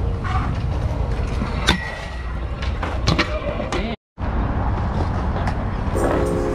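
Pro scooter riding on skatepark concrete: a steady rolling rumble broken by several sharp clacks of landings and wheel or deck impacts. The sound cuts out briefly about four seconds in, and music comes in near the end.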